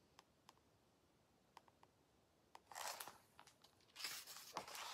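Paper page of a picture book being turned, giving two soft rustles, one about three seconds in and another a second later, after a few faint ticks.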